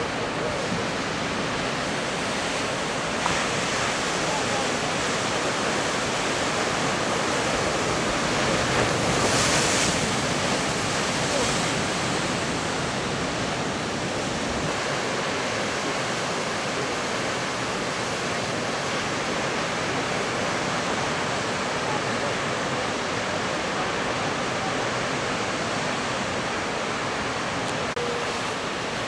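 Heavy storm surf breaking against a rocky headland and churning in the shallows: a continuous wash of surf noise that swells louder briefly about nine to ten seconds in.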